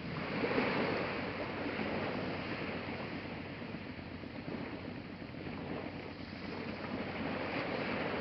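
Sea waves washing onto a pebble beach: a steady hiss that swells about a second in and again near the end.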